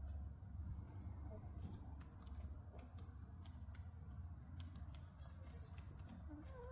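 Backyard chickens close to the microphone: scattered quick sharp clicks, with a few faint short clucks, and a short rising chicken call right at the end, over a low steady rumble.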